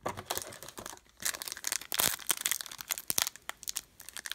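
Foil trading-card pack crinkling and being torn open by hand, a continuous run of irregular sharp crackles.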